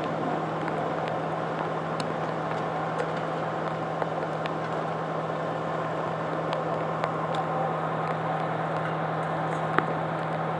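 Idling fire engine giving a constant low hum over a steady rushing background, with a few faint clicks.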